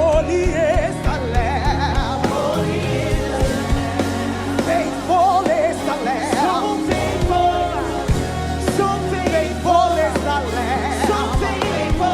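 Gospel worship music: a singer's voice wavers and slides over a band with sustained bass and steady drum hits.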